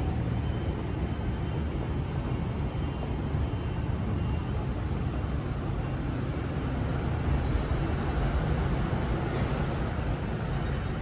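Steady rumble of road traffic on the elevated roadways overhead, even and unbroken, with a brief sharper sound about nine seconds in.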